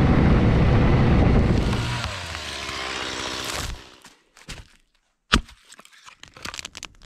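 Ski-Doo Skandic snowmobile engine running, its pitch shifting, fading out about three and a half seconds in. Then one sharp, loud crack about five seconds in, a hatchet splitting a log, followed by a few light knocks of wood.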